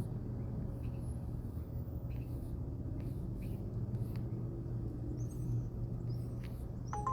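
Steady low hum with a few faint clicks. Near the end, a short run of electronic beep tones starts.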